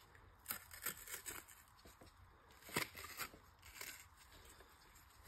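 Faint, scattered crinkling and small tearing crackles of a used Honda OEM oil filter's oil-soaked pleated paper element being pulled and fanned apart by gloved hands.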